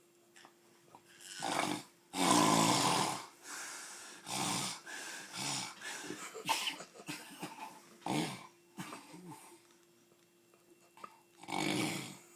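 Loud snoring: irregular rasping snores and snorts, the longest and loudest about two seconds in, with shorter ones following at uneven intervals and a quiet stretch before a last snore near the end.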